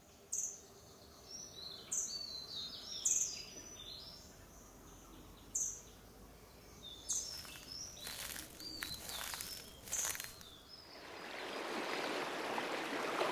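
Forest ambience: small birds chirping in short high calls every second or two, with the rush of a flowing stream rising near the end.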